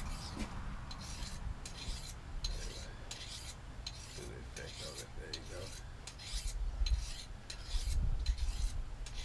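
Scratchy rubbing against the body-worn camera's microphone, in strokes about twice a second, over a low wind rumble.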